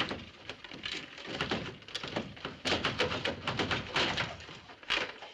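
Rifles rattling and knocking against a wooden wall gun rack as they are yanked at, a ragged run of clattering thunks and clicks.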